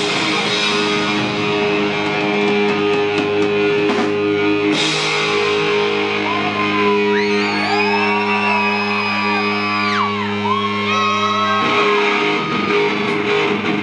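Live rock band playing loud, with distorted electric guitars and drums. Held chords ring under the band, and through the middle notes bend up and down in pitch.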